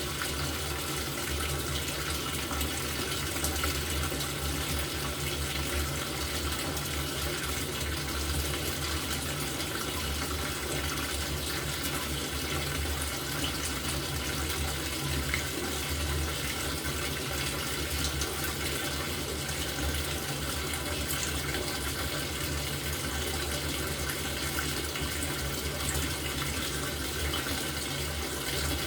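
LG top-loading washing machine with water running into its tub, a steady rush over a low hum.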